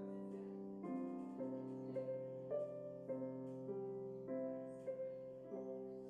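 Soft background piano music: slow, gentle notes and chords struck about every half second, each ringing on into the next.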